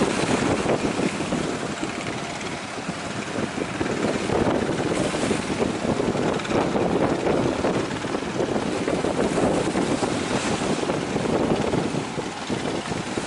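Wind buffeting the microphone over the wash of sea surf, rising and falling in gusts.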